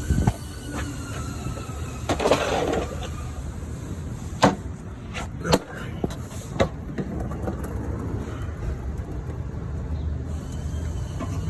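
A vehicle engine running with a steady low hum, broken by a handful of sharp knocks and clicks in the first half.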